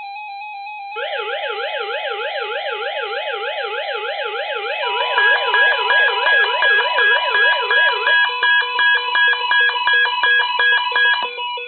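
Several weather radios sounding their alert alarms for a severe thunderstorm watch: a rapid beeping tone, then from about a second in a warbling, siren-like alarm, joined about five seconds in by a louder beeping tone at about two beeps a second, with the warble dying away near the end.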